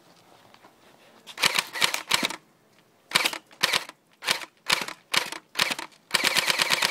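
Airsoft AK-47 replica firing at a water balloon. A quick cluster of shots comes about a second and a half in, then six single shots about half a second apart, then a full-auto burst of about a dozen shots in a second near the end.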